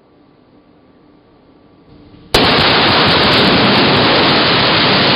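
Gunpowder and gasoline charges on a painted wall ignite with a sudden blast a little over two seconds in, then burn with a loud, unbroken rush of noise.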